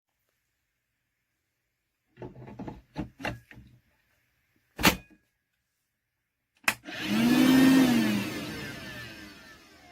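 A few plastic clicks and knocks, then a sharp click about two-thirds of the way in as the DeWalt 20V MAX cordless wet-dry vacuum's motor starts. The motor runs up briefly, then fades over about three seconds as it winds down.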